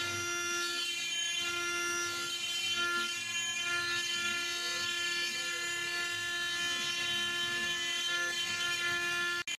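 Spindle of a 4-axis CNC stone carving machine running at a steady pitch while its water-cooled cutter carves a stone column, a constant whine over a hiss.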